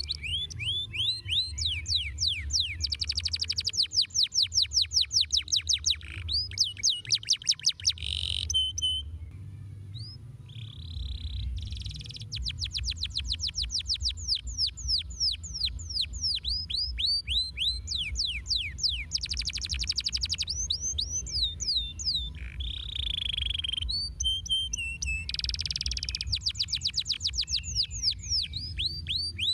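Domestic canary singing a long song of rapid trills: runs of quick, repeated sweeping notes, broken twice by brief pauses.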